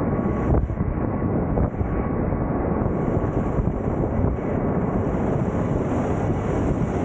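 Wind buffeting the microphone over the steady running noise of aircraft engines.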